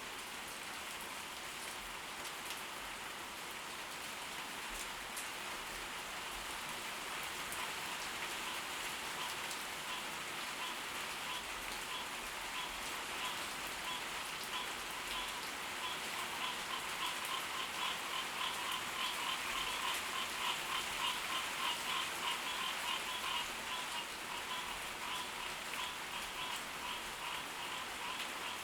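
Steady tropical-storm rain falling. A rhythmic pulsing frog call rises in about a third of the way through and grows stronger over the rain.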